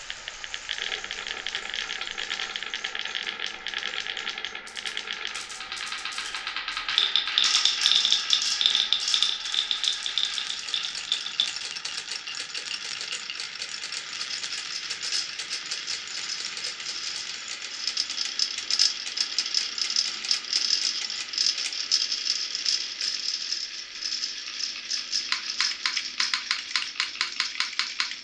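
Many marbles rolling and clattering along wooden and clear plastic tracks: a dense rattle of small clicks and knocks. Over the last few seconds it settles into a fast, even run of separate clicks.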